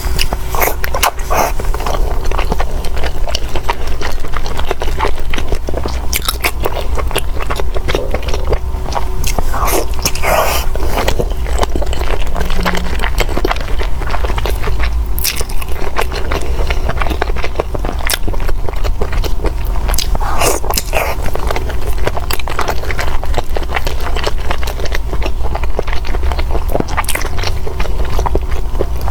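Close-miked mukbang eating: biting and chewing with irregular crunchy clicks and wet mouth sounds.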